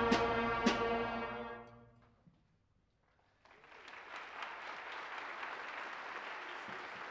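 A student brass section of baritones and horns ends on a held note that dies away over about two seconds. After a brief hush, the audience applauds steadily from about three and a half seconds in.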